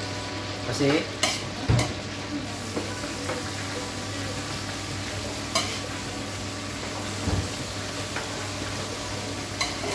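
Chicken pieces deep-frying in hot oil with a steady sizzle, while a metal spoon stirs noodles in a metal pot, knocking sharply against the pot a few times.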